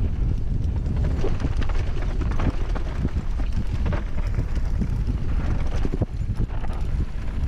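Mountain bike riding fast down a dry dirt trail, heard from a helmet-mounted camera: a steady low rumble of wind and tyres on dirt with irregular knocks and rattles as the bike goes over bumps.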